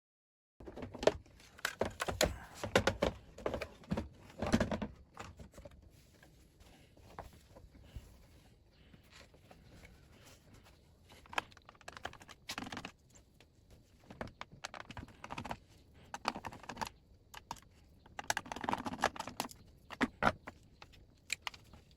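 Irregular clicks, taps and clatter from handling and opening the plastic casing of a Roland Juno-DI keyboard to get at the pitch-bend potentiometer. The busiest stretches are at the start and again near the end.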